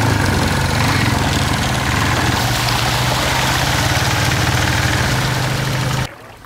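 ATV engine running steadily while riding, then cutting off abruptly near the end.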